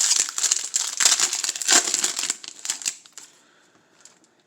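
Crinkly rustling of baseball cards being handled and slid through the hands, stopping about three seconds in.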